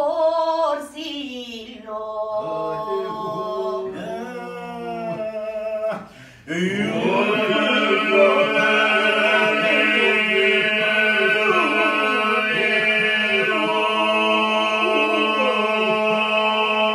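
Albanian polyphonic folk singing, unaccompanied, by a small group of men and a woman. A single voice sings the opening phrase. After a short break about six seconds in, the group comes in with a steady held drone (the iso) under the lead voices.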